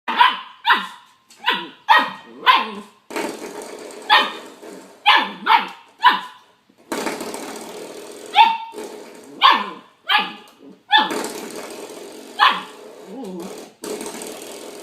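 A dog barking: about fourteen short, sharp barks in irregular bunches.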